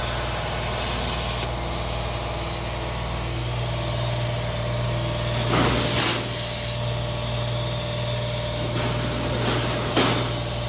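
Plasma cutter cutting 16 gauge steel: a steady arc hiss over a low machine hum, with two brief louder surges about six seconds and ten seconds in.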